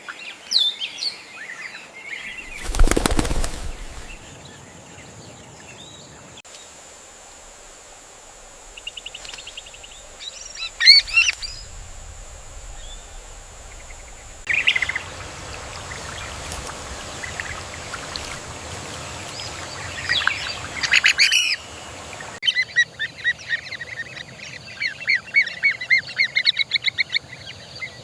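Bird wingbeats, a loud rush of flapping about three seconds in, followed by scattered high chirps and, near the end, a rapid run of repeated high-pitched chirping calls.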